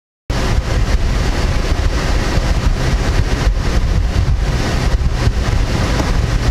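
After a brief silence, a Chevrolet car's engine idles, heard from inside the cabin: a steady low rumble under an even hiss.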